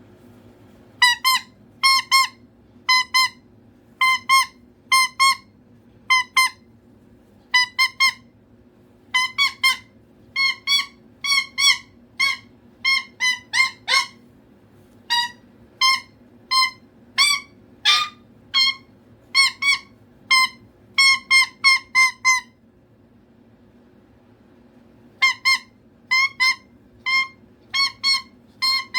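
Cockatoo calling for attention: short, loud, high pitched calls repeated over and over, often two in quick succession, with a pause of a few seconds near the end.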